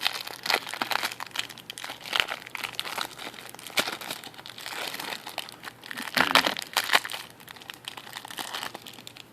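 Foil wrapper of a Magic: The Gathering Fate Reforged booster pack crinkling as it is handled and opened by hand, in irregular crackles with a louder flurry about six seconds in.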